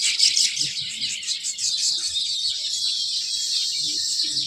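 A group of small birds chirping and chattering together: a dense run of rapid, overlapping high chirps.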